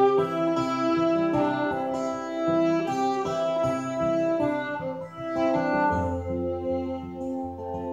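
Fiddle and acoustic guitar playing a slow instrumental passage live, the fiddle holding long notes over the guitar's accompaniment.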